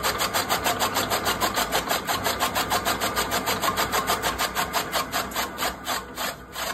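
Electric chaff cutter's flywheel blades chopping dry fodder stalks in a fast, even rhythm of blade strokes. Near the end the strokes space out and fade as the machine slows down.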